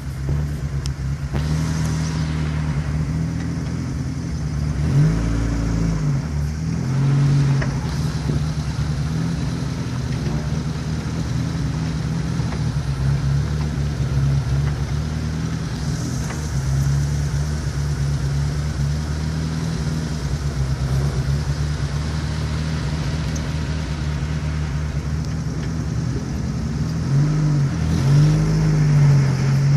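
A 4x4 SUV's engine running at low speed, heard from inside its cabin while crawling along, with brief revs about five seconds in and again near the end.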